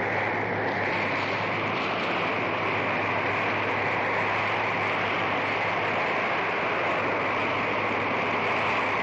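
Storm wind, a steady dense rush with no breaks, over a low steady hum.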